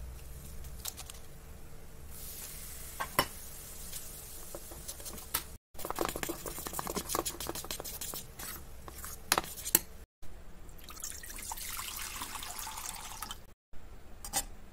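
A spoon stirring and scraping thick dhokla batter in a steel pot, with many small clicks. Then water runs into a steel steamer pot, and a metal stand clinks as it is set down in it.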